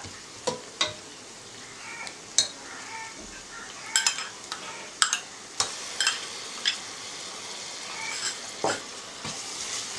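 Sliced onions and green chillies sizzling in coconut oil in a pressure cooker, with a steel spoon stirring and clinking against the pot about ten times.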